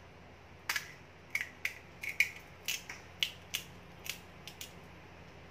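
Crisp fried pani puri shell cracking as a thumb breaks a hole in its top: a quick run of sharp crackles and snaps over about four seconds.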